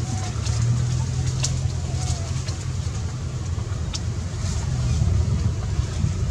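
Steady low rumble of an engine running nearby, with a few faint short chirps and a couple of sharp clicks over it.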